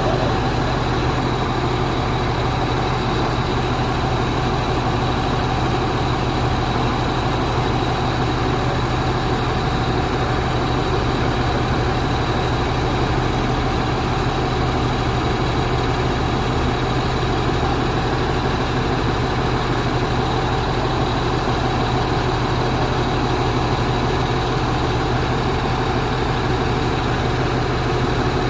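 Truck engine running steadily at a constant low speed, an unchanging low hum with no revving.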